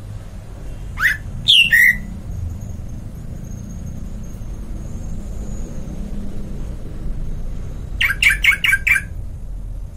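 Bird calls: two or three short squawks about a second in, then a quick run of about five near the end, over a steady low rumble.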